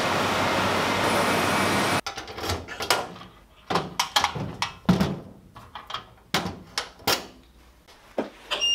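Steady workshop machine noise that cuts off abruptly about two seconds in, followed by a string of sharp knocks and clunks from a steel locker door and shoes being set inside it. Near the end, a short high electronic beep as a card is presented to a clock-in card reader.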